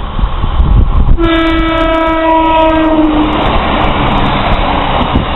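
Class 150 Sprinter diesel multiple unit sounding its horn once as it approaches: a single held note of about two seconds, starting about a second in and sagging slightly in pitch. Under it is the steady rush of the passing train and wind on the microphone.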